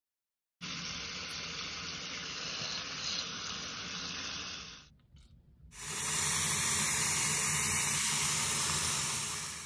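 Tap water running in a steady stream onto a wet hair closure in a sink as it is rinsed. It starts abruptly about half a second in, dips briefly about five seconds in, then runs louder until it cuts off at the end.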